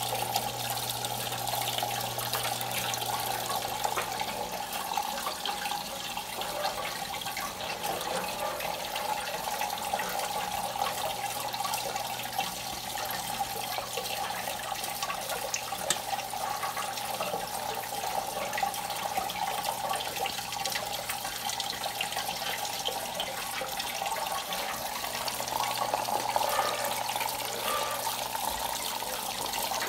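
Water running steadily from a faucet and a hose, pouring and splashing into the metal funnels and copper basins of a metal fountain sculpture. A low steady hum drops out about five seconds in and comes back near the end.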